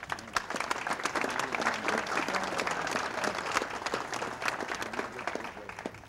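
An audience applauding, a dense patter of many hands clapping that fades away near the end.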